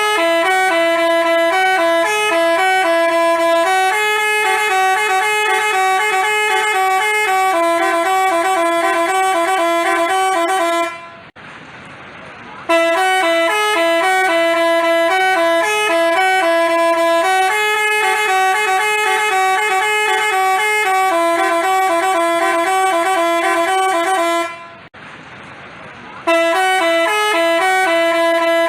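Bus telolet 'basuri' horn playing a melody that steps between a few close notes, in long phrases. It breaks off briefly about eleven seconds in and again about twenty-five seconds in, then starts the tune over.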